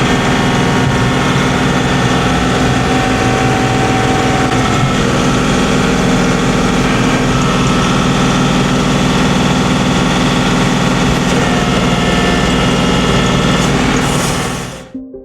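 A vehicle's engine and road noise heard steadily as it drives, cutting off abruptly near the end.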